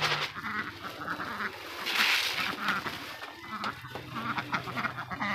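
A flock of domestic ducks quacking repeatedly, many short calls overlapping. The birds are coming to a freshly filled grain feeder.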